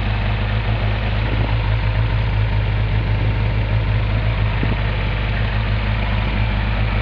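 A 1987 Toyota MR2's twin-cam four-cylinder engine idling steadily, heard at the tailpipe. It breathes through headers, a mandrel-bent high-flow cat and a Magnaflow XL muffler.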